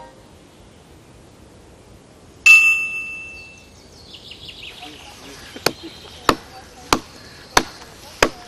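A single bright metallic ding about two and a half seconds in, ringing out for about a second. Then, from about five and a half seconds, sharp knocks at a steady pace, about three every two seconds, with faint high chirping behind them.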